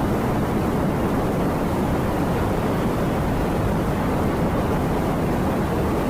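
Strong storm wind blowing steadily, a constant low rushing noise with no let-up.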